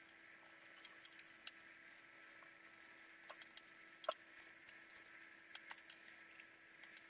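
Faint, scattered clicks and light scratching of a brush and gloved hand working finish onto a wooden table's legs, the sharpest ticks about one and a half and four seconds in, over a steady faint hum.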